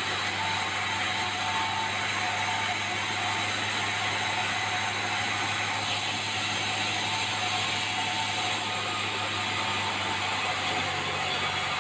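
Sawmill machinery running steadily: a constant low engine hum under a dense, hissing mechanical noise.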